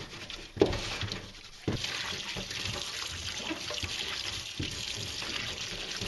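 Tap water running into a stainless steel sink while hands rub and rinse small salted dace to scrub off their slime. There are a couple of knocks of fish and hands against the sink in the first two seconds, then the water runs steadily from about two seconds in.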